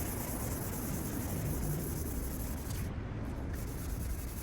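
600-grit wet and dry paper with water rubbing steadily over a Ford Focus ST225's plastic headlight lens, wet sanding off the cloudy surface.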